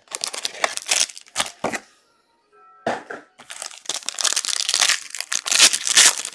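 Trading card pack wrappers being crinkled and torn open and packs handled at a hobby box, in bursts of crackling, with a short pause a couple of seconds in and denser crinkling toward the end.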